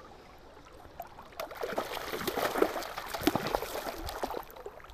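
River water sloshing and splashing close by, quiet at first, then louder with many small splashes from about a second and a half in until near the end.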